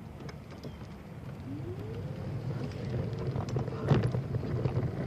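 Bicycle riding along a trail: a steady rattle of tyres and frame with some wind on the microphone. A whine rises about a second and a half in and then holds a steady pitch, and a sharp clunk stands out about four seconds in.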